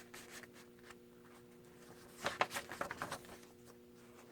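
Paper pages and cards of a handmade junk journal being handled and turned: a short run of soft rustles and small taps about two seconds in, over a faint steady hum.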